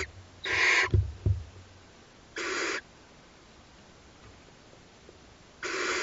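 Barn owl chicks giving their hissing, snore-like begging calls: short bursts of about half a second, repeated every second or few. A few dull low thumps come about a second in.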